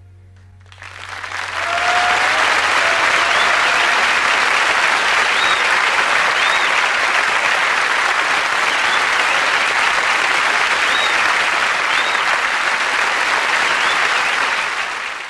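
Studio audience applauding, swelling up about a second in and holding steady, with a few short whistles over it.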